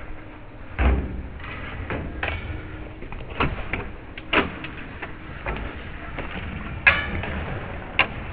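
Ice hockey rink game sounds heard from the bench: a series of sharp knocks and bangs against the boards and glass, about six in eight seconds, the loudest about a second in and near seven seconds, over a steady arena hum.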